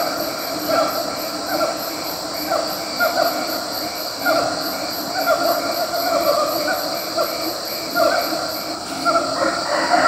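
Siamang calling: a repeated series of short, pitch-bending whooping calls, roughly one to two a second, over a steady high-pitched background drone.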